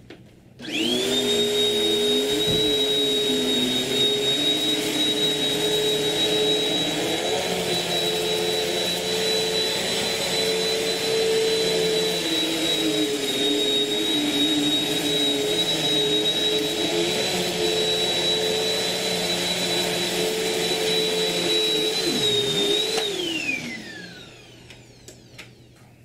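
Bissell CleanView Swivel Pet upright bagless vacuum cleaner switched on, its motor rising quickly to a steady high whine as it runs over carpet. About 23 seconds in it is switched off and the whine falls away as the motor spins down.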